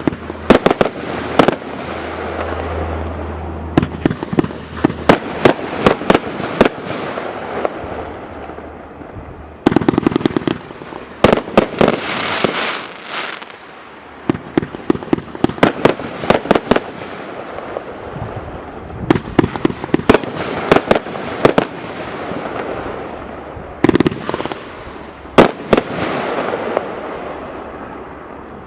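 Caged Tiger Pro 30mm firework barrage cake firing: clusters of sharp, loud bangs in quick succession, with a crackling hiss between the volleys.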